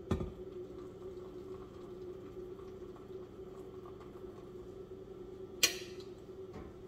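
Hot water poured slowly from a kettle onto coffee grounds in a pour-over filter, a quiet trickle over a steady low hum. A sharp click about five and a half seconds in.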